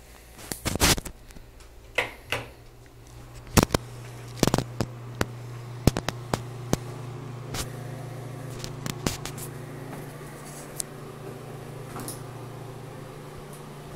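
Steady low hum of a ventilation fan, coming on about three and a half seconds in, with scattered sharp clicks and knocks of a handheld camera being moved about.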